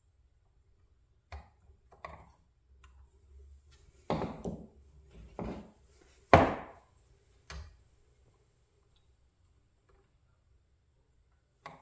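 Small hand tools knocking and clicking against a model crane and the tabletop while a cylinder pin is worked into place: a scattered series of knocks and clicks, the loudest about six seconds in.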